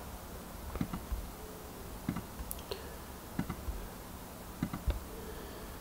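Faint computer mouse clicks, about nine at irregular intervals, as edges are picked one by one in a selection.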